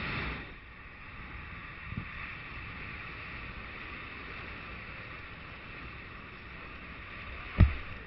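Steady wind rushing over a small action camera's microphone, with a dull knock about two seconds in and a louder one near the end.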